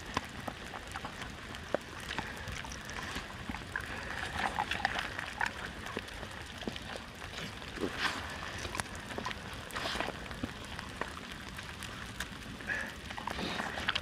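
Light rain falling steadily, with many scattered drops tapping and ticking close by.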